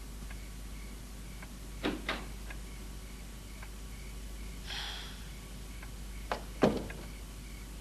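Two sharp double clunks, about two seconds in and again near the end, the second the louder, with a short soft rush of breath-like noise between them, over a faint regular ticking of about two a second in a small quiet room.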